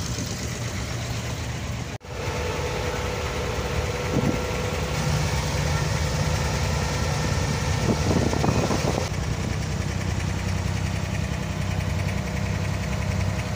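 Inboard diesel engine of a wooden abra water taxi running steadily under way: a low hum with a steady higher tone over it.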